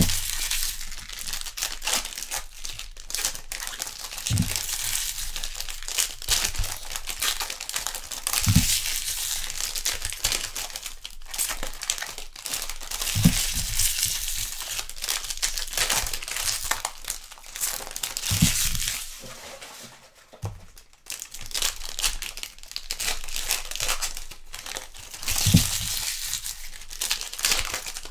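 Trading-card pack wrappers crinkling and tearing as packs are opened and handled one after another, with a few soft thumps every four or five seconds and a short lull about two-thirds of the way through.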